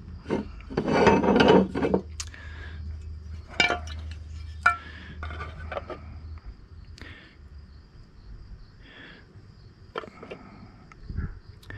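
Chainsaw crankcase and kit parts being handled on a countertop: a loud burst of scraping and rattling about a second in, then a few scattered light clicks and knocks as the case is picked up and turned over.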